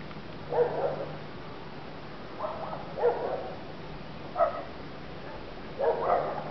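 A dog barking now and then, about six short barks spread unevenly across a few seconds.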